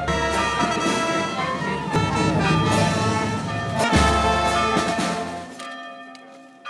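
Street brass band playing, with trombones and other brass over bass drum and clashing cymbals; a loud drum-and-cymbal strike comes about four seconds in. The music fades away near the end.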